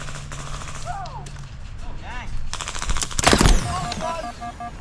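Airsoft electric rifle firing a rapid full-auto burst of about a second, a fast string of sharp cracks, about two and a half seconds in.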